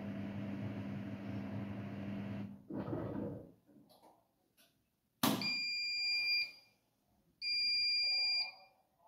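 Siemens iQ700 washing machine finishing its final spin: the steady motor and drum hum stops about two and a half seconds in, followed by a brief rush of noise and a click. Then come two long, steady beeps about two seconds apart, the machine's end-of-programme signal.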